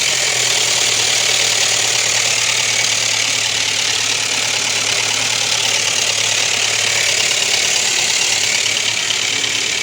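Ford Ka's 1.0 Zetec Rocam four-cylinder engine idling with a steady metallic clatter: the hydraulic lifters are unloaded and the timing chain is slapping, from loss of oil pressure with the oil warning light on. The mechanic suspects broken chain guides whose pieces have clogged the oil pickup.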